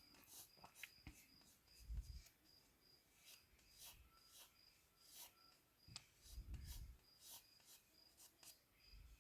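Pencil strokes scratching on paper as a bird is sketched, in short irregular strokes, over a cricket's steady high chirping at about three pulses a second. Two soft low thumps come about two seconds in and again past the middle.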